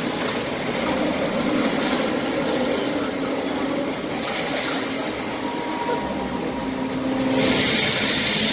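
Claas combine harvester running, played from a promotional film over loudspeakers: a steady mechanical rumble and rattle. A rushing hiss swells about four seconds in and again near the end.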